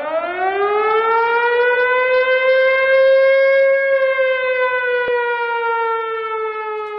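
Air-raid siren wail that winds up in pitch over about the first second, holds steady, then slowly sinks. It serves as the warning-siren intro of a pop song.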